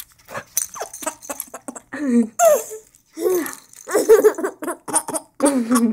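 A six-month-old baby giggling in a string of short bursts, with breathy gasps between the laughs.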